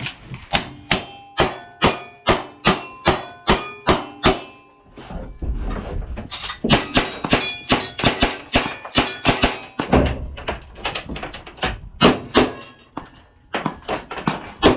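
Rapid string of gunshots from cowboy action shooting guns, with steel targets ringing after hits: about ten evenly spaced shots in the first four seconds, a denser run after that, and a slower finish on a shotgun.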